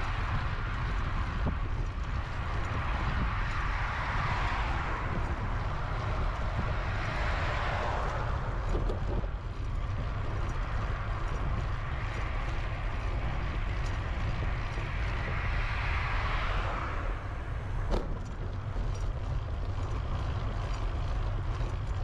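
Road traffic: several cars pass one after another, each a rushing tyre-and-engine sound that swells and fades over a few seconds, over a steady low rumble. A single sharp click about eighteen seconds in.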